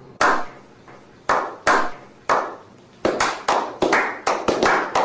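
A series of sharp percussive strikes, each ringing out briefly: a few spaced apart, then quickening to about four a second about three seconds in.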